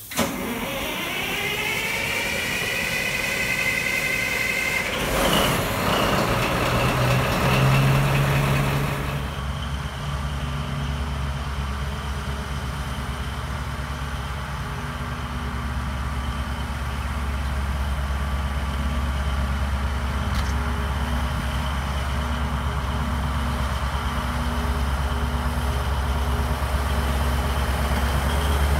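Diesel locomotive engine revving up: a rising whine climbs for about five seconds and levels off, with a short hiss just after. It then settles into a steady low engine rumble that slowly grows louder as the locomotive draws near.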